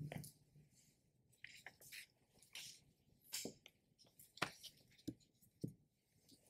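Near silence broken by faint, scattered rustles and soft ticks of a large book and its pages being handled close to a microphone.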